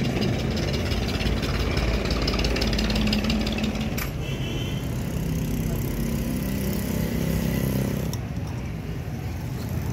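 A small engine running steadily, with a fast ticking through the first half; it eases off a little about eight seconds in.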